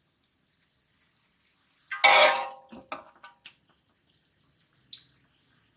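A metal spoon clanks and scrapes once against a cooking pot about two seconds in, with a brief metallic ring, followed by a few light clicks of utensils.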